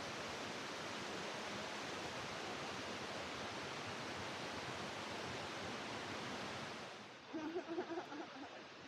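Steady roar of a large waterfall, Nachi Falls' water crashing down. About seven seconds in it cuts to a quieter scene with a few short pitched sounds.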